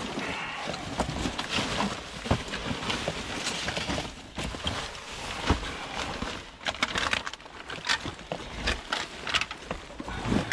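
Rummaging through trash in a dumpster: an irregular run of rustling, crinkling and crunching with short knocks.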